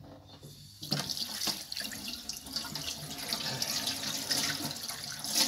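Kitchen tap turned on about a second in, water running and splashing into a stainless steel sink as a fish fillet is rinsed under the stream by hand.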